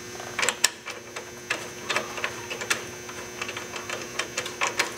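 Irregular metallic clicks and taps of a hand tool and parts at an ATV front brake caliper as the pad retaining pin and caliper bolt are fitted back.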